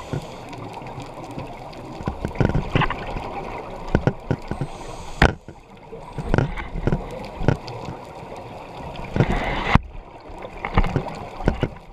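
Scuba regulator breathing heard underwater: bursts of rushing exhaust bubbles, loudest a couple of seconds in and again near the end, over a watery background scattered with sharp clicks.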